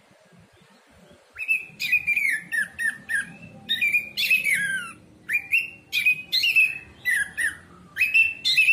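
Orange-headed thrush singing: a fast, varied run of whistled and scratchy notes in quick short phrases, starting about a second and a half in.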